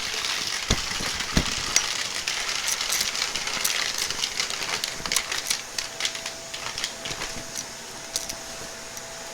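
Vacuum cleaner running steadily and sucking up crunchy debris, with quick sharp clicks and crackles. The clicks come thickly at first and thin out over the last couple of seconds.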